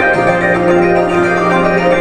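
Live band music: sustained, organ-like chords over a held bass note that moves to a new note just after the start.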